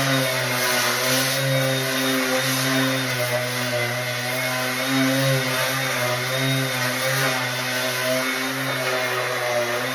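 Battery-powered DeWalt sander running steadily with coarse-grit paper on a rough patched wall, its motor hum wavering slightly in pitch over a gritty scraping hiss.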